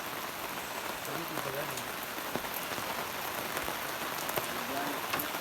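Steady rain falling and pattering on surfaces, with a faint voice briefly in the background.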